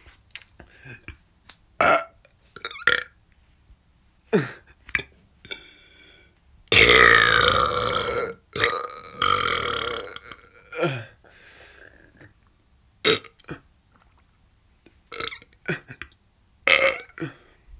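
A person belching repeatedly: a string of short burps, with a long, loud, drawn-out belch about seven seconds in that breaks once in the middle.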